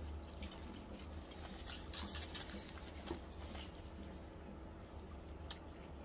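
Faint chewing and wet mouth sounds of someone eating chicken noodles, with scattered small clicks from chopsticks and food, over a low steady hum.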